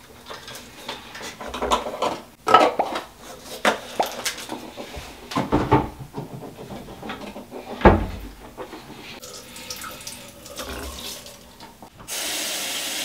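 Bathroom sink in use after teeth-brushing: irregular knocks and splashes of rinsing, then the faucet turned on and running steadily near the end.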